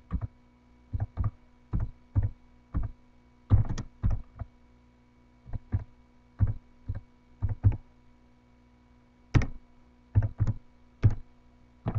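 Computer keyboard keystrokes: about two dozen separate clicks typed in short, uneven runs with brief pauses, over a faint steady electrical hum.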